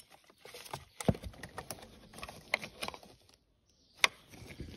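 Plastic clicks and small rattles of a glovebox-light wiring connector being worked loose and unplugged by hand, with a sharp click about a second in and another near the end.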